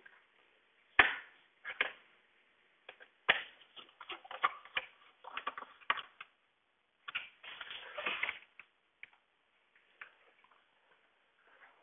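Irregular clicks, knocks and rattling from a new double-hung replacement window being adjusted in its frame with a screwdriver and by hand. There is a sharp knock about a second in, then two bursts of clicking and clattering, a sparse tick or two near the end.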